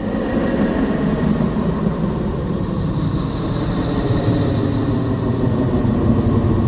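Radio emissions converted into audible sound, presented as the sound of the planet Neptune: a steady, dense rumble with a hiss above it.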